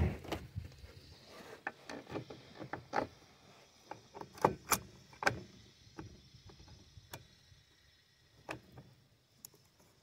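Scattered sharp clicks and knocks of a chainsaw's side cover, chain and bar being handled and fitted together, with the loudest taps about four and a half to five seconds in.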